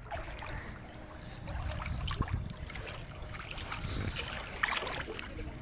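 Small waves lapping and splashing around model boat hulls on a lake, with a low wind rumble on the microphone.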